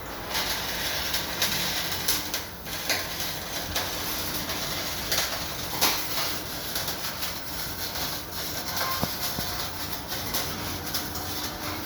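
Electric arc welding: a continuous crackle with many irregular sharp pops.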